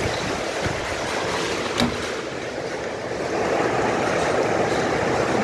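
Heavy rain mixed with hail pouring down in a steady rush, with a few sharper single hits; it grows louder about three seconds in.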